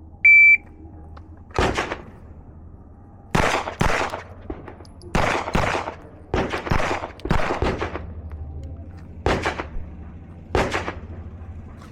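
A shot timer's start beep, then a Glock 17 9mm pistol fired about a dozen times at an uneven pace, some shots in quick pairs. The beep is the loudest sound.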